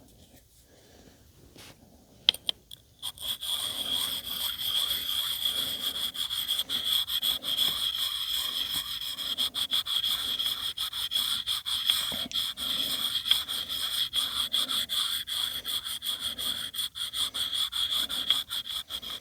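Water-wetted sharpening stone rubbing in quick, repeated strokes along the carbon-steel edge of a Fiskars X11 hatchet: a steady gritty scraping. A couple of light clicks come about two seconds in, and the honing strokes start about a second later.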